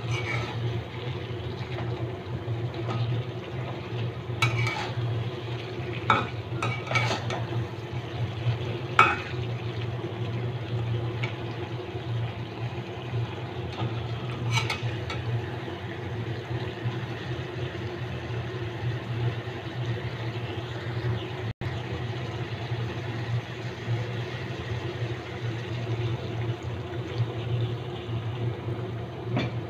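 Pigeon curry frying in an aluminium karahi while a metal spatula stirs and scrapes it, with a few sharp clinks of the spatula against the pan in the first half. A steady low hum runs underneath.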